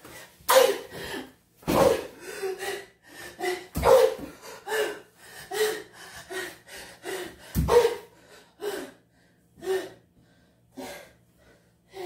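A man's strained grunts and gasps in short bursts about once a second, growing sparser toward the end, with three heavier thuds among them, from a physical struggle with his own arm.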